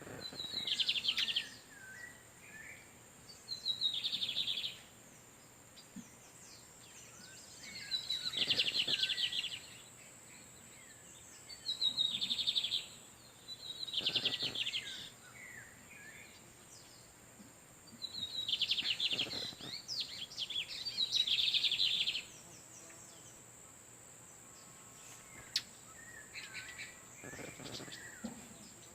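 Male lined seedeaters (Sporophila lineola) trading song: about eight short, buzzy, fast-trilled phrases, each around a second long, come every few seconds over a steady high whine.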